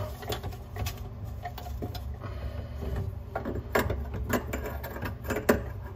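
Chrome tubular drain trap being worked loose by hand: slip nuts turned and the trap pieces shifted, giving scattered small clicks, scrapes and knocks of metal parts.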